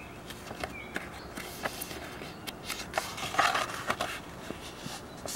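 A hardback picture book being handled and its page turned: a run of paper rustles and small clicks, densest about three and a half seconds in.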